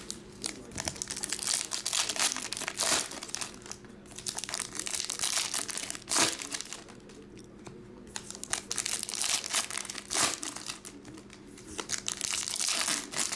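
Foil wrappers of Topps trading-card packs crinkling and tearing as they are opened by hand, in crackly bursts with a couple of brief lulls.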